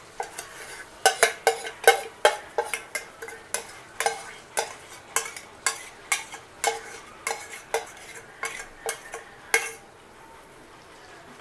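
A metal spoon clinking and scraping against the bowl and the rim of an aluminium pressure cooker as marinated mutton is scraped into the pot: sharp clinks about two a second, each with a short ring, stopping a little before the end, over a faint sizzle of the hot masala in the cooker.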